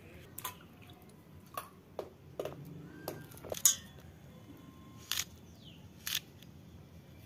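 Okra pods being sliced against an upright knife blade: a series of short, crisp cuts at irregular intervals, the loudest a little past halfway.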